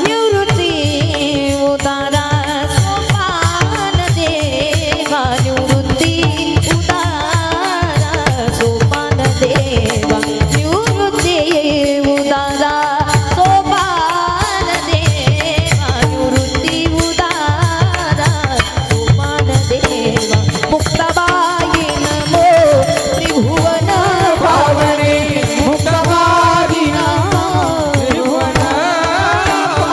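Devotional kirtan music: a singer holds a long, sliding melodic passage without clear words over a fast, steady hand-drum beat.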